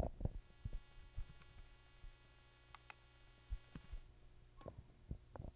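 A computer mouse clicking a few times at irregular intervals, faint, over a low steady electrical hum that fades out about four seconds in.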